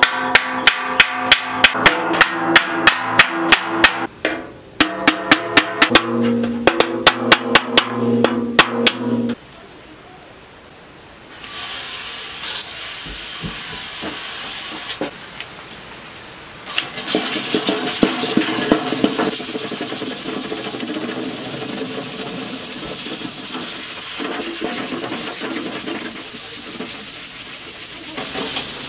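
Ball-peen hammer blows ringing off the steel lid of a 55-gallon drum as it is dished into a wok, about three strikes a second, with the ring changing pitch as the metal is shaped. After a short lull about nine seconds in, steady hand-scrubbing of the rusty steel disc takes over.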